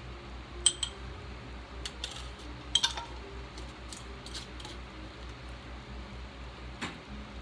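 Small glass dye jars with metal screw lids clinking and knocking as they are handled and capped: a scattering of sharp chinks with a brief ring, the loudest two about a second in and about three seconds in.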